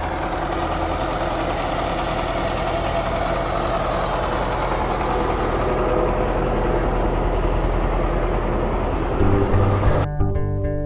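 A steady engine running, with a few faint steady tones in it and slowly getting a little louder. Near the end, music with a plucked bass line starts.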